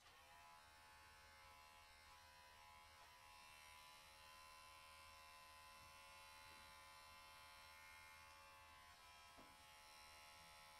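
Electric pet hair clipper switched on, spinning up briefly, then running with a faint steady buzz.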